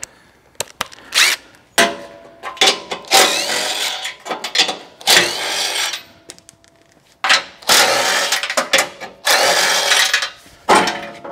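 Cordless impact driver with a 14 mm deep socket on an extension, run in repeated bursts of one to two seconds with short pauses between, spinning off crash-bar mounting nuts already broken loose with a breaker bar.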